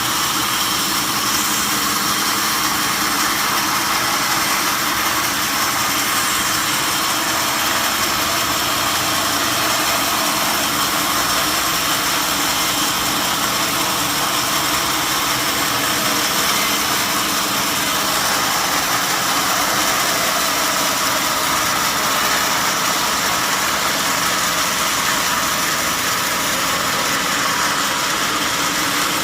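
Sawmill saw running steadily: a constant loud machine noise with a few steady whining tones in it.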